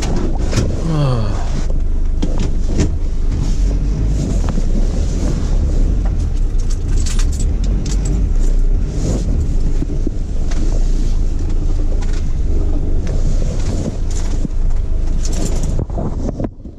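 Mercedes Sprinter 310 diesel van heard from inside the cab, running and moving slowly, with a steady low rumble. About a second in there is a falling pitch, and scattered clicks and rattles run over it.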